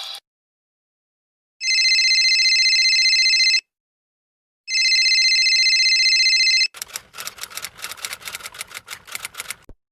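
Telephone ringing: two rings of about two seconds each with a fast warble, a second apart. They are followed by about three seconds of rapid, irregular clicking.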